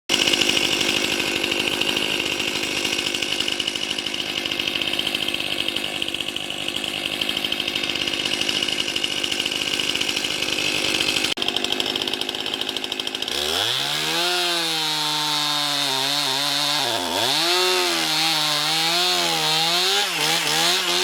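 Two-stroke chainsaw running hard at high speed, starting abruptly. About thirteen seconds in it changes to revving, its pitch dropping and climbing again several times.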